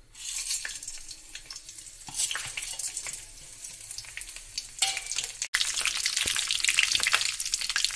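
Whole spices (cumin, fenugreek seeds, bay leaves, dried red chillies, black pepper) sizzling with fine crackles as they hit hot mustard oil in a kadhai for a tadka. The sizzle gets louder in the last couple of seconds while a spatula stirs the spices.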